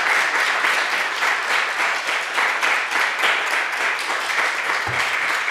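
An audience applauding: many hands clapping in a steady, dense patter.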